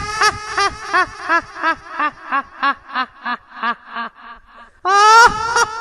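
High-pitched cackling laugh: a long drawn-out opening note, then a string of short 'ha' pulses, about three a second, that fade away, with a second long note starting the cackle over near the end.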